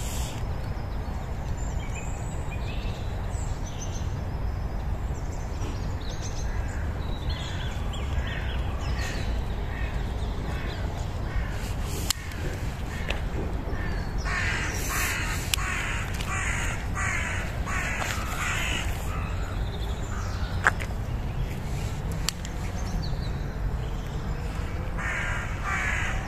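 A bird calling: a run of about six harsh calls, evenly spaced, about halfway through, a shorter run near the end, and fainter calls earlier, over a steady low rumble.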